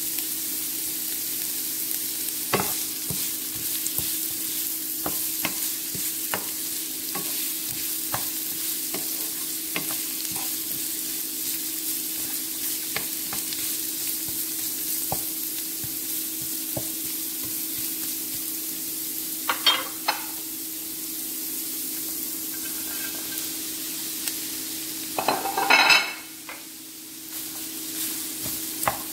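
Vegetables sizzling in a non-stick frying pan while a wooden spatula stirs them, tapping and scraping against the pan every second or so. Near the end there is a louder clatter, and the sizzle briefly dies down.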